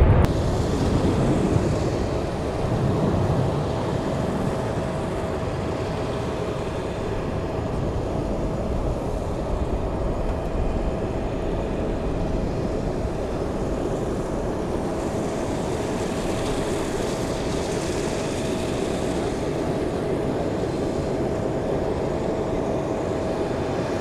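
Jet aircraft engine noise across an airfield: a steady rumble with a steady whine, a little louder in the first few seconds and then even.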